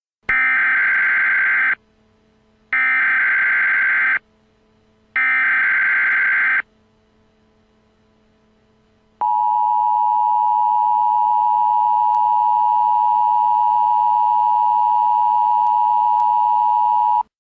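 Emergency Alert System header: three bursts of shrill digital SAME data tones, each about a second and a half long with short gaps between them, then after a pause a loud steady attention tone held for about eight seconds. This is the alert signal that opens a new emergency warning broadcast.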